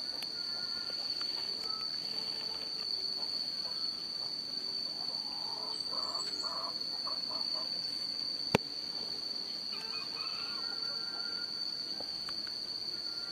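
Dawn countryside ambience: a steady, high-pitched insect drone with scattered short bird calls, and a single sharp click about eight and a half seconds in.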